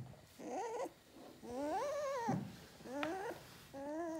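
Four-week-old German shepherd puppy whining in four separate high cries, each rising and then falling in pitch, the second the longest.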